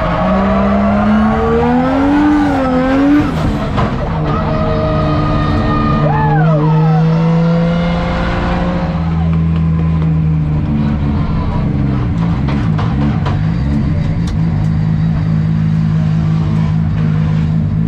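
Drift car engine revving up and down for the first few seconds, then holding fairly steady revs.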